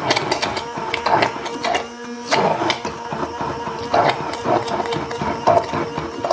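Hand-held immersion (stick) blender running in a glass jar of thick mayonnaise: a steady motor whine with irregular knocks and slaps as it is worked up and down through the emulsion.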